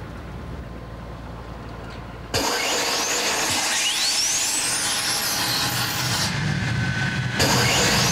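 Hawker Hunter's Rolls-Royce Avon 100-series jet engine being started by cartridge: a low rumble, then about two seconds in a sudden loud rush of gas, with a rising turbine whine as the engine spools up.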